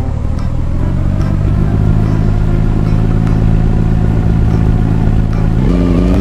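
An engine running steadily and loudly, its pitch stepping up near the end and starting to rise as it revs.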